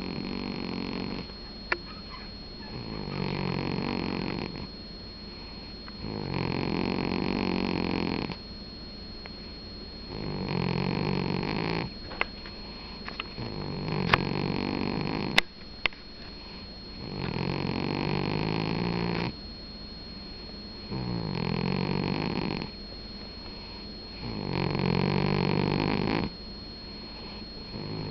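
A domestic cat snoring in its sleep: a steady run of snores, one about every three and a half seconds, each lasting a second and a half to two seconds. A few sharp clicks sound between the snores near the middle, the loudest of them louder than the snoring.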